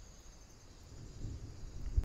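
Faint steady high-pitched drone of insects in the woodland. A low rumbling noise builds over the second half.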